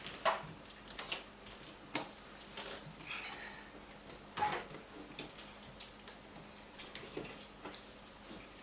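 Dishwasher being worked out of its under-counter opening: scattered light knocks, clicks and short squeaky scrapes as the unit is shifted and its feet catch on the floor lip.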